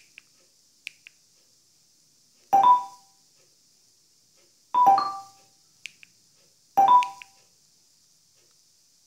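Short electronic chime from the TV's voice-search prompt, sounding about every two seconds while it waits for speech. A few faint clicks come near the start.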